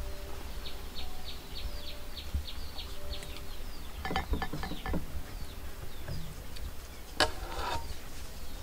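Small birds chirping over and over, with a few clinks and scrapes of a metal ladle against the pot and bowl about halfway through and a sharper clink near the end as dessert is ladled out.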